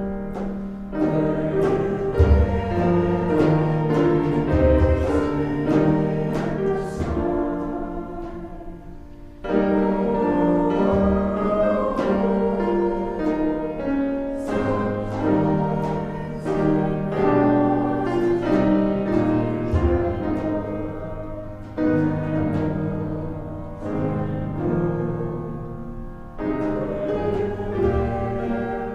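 Congregational hymn singing with keyboard accompaniment: sustained voices and instrument together in slow phrases, with short breaks between lines.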